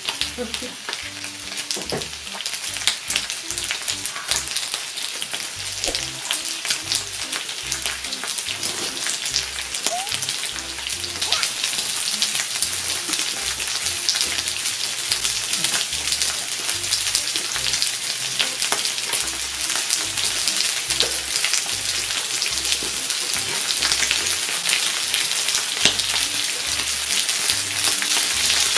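Pork belly slices sizzling on a grill pan: a steady hiss dotted with the crackle of spattering fat. It gets a little louder over the second half.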